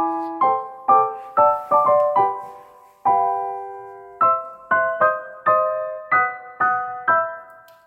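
Background piano music: a gentle melody of struck notes, about two a second, with one longer held chord a few seconds in.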